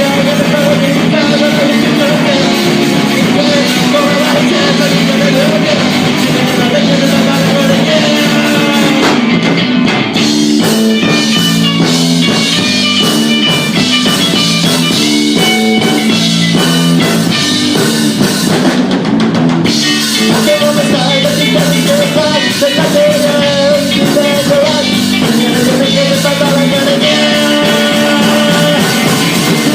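Rock song with a sung melody over drums and guitar, loud and continuous.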